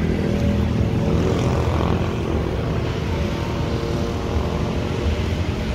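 A motor vehicle's engine running steadily, a continuous low drone with traffic hiss above it.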